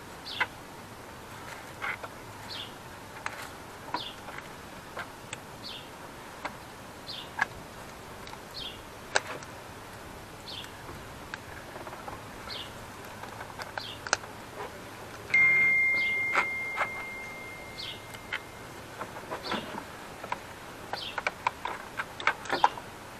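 Scattered clicks and knocks of parts being handled and unfastened in an engine bay, with a small bird chirping over and over in the background. About fifteen seconds in, one clear ringing tone starts sharply and dies away over about three seconds.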